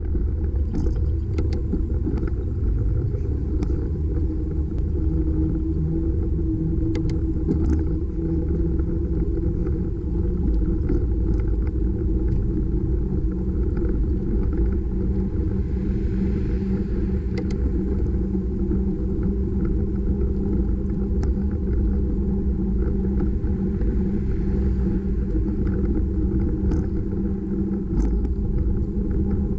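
Steady low wind rumble and road noise on a bicycle-mounted camera's microphone while riding along a paved road, with a few small clicks and rattles.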